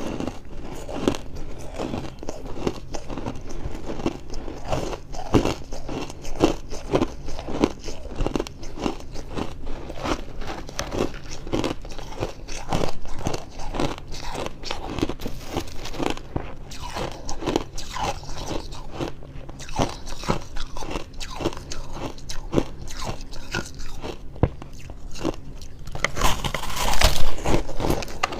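Close-miked chewing of freezer frost: a dense run of quick, dry crunches, with a louder flurry of crunching near the end.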